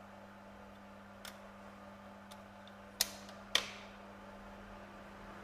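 Hard clicks from handling a Zippo lighter and its plastic case: a few faint clicks, then two sharp clicks about half a second apart, the second with a short ringing tail.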